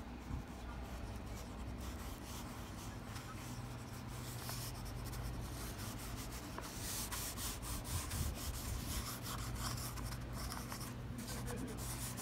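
Yellow Lyra Aquacolor water-soluble wax crayon scratching and rubbing across drawing paper in many short strokes as flower petals are outlined.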